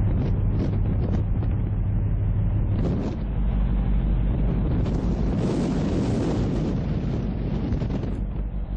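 Wind buffeting an outdoor microphone in gusts, over a steady low rumble.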